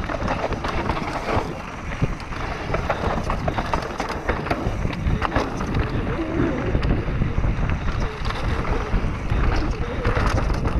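Wind buffeting the microphone of a camera riding on a mountain bike descending a dirt trail at speed, over the rumble of tyres on dirt and frequent clicks and rattles from the bike.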